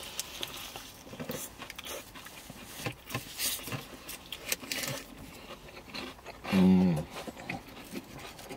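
Eating sounds: biting and chewing a crispy chicken burger, with paper wrapping and a paper bag rustling in small crackles. A little past the middle, a short hummed 'mmm' that falls slightly in pitch.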